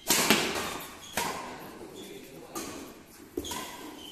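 Badminton rackets striking a shuttlecock during a doubles rally: a hard jump smash at the start, then three more sharp hits roughly a second apart. Each hit echoes briefly in the large indoor hall.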